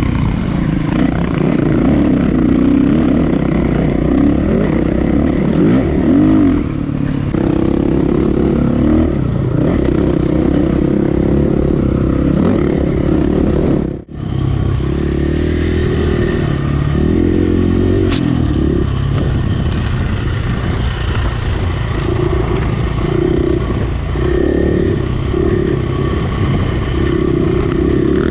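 KTM four-stroke single-cylinder enduro bike engine, heard from on the bike, revving up and down over a dirt trail with chassis clatter. The sound breaks off briefly about halfway through.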